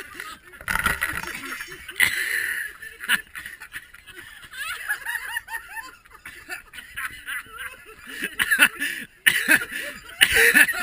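People laughing and snickering in uneven bursts, with short wordless vocal sounds, louder toward the end.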